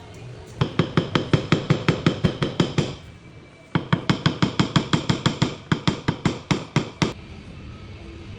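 Paintless dent repair tap-down on a Volvo XC60's steel door panel: quick, evenly spaced metal taps, about six a second, each with a short ring, knocking down the raised metal around a bodyline dent. Two runs of tapping, the second starting after a pause of under a second.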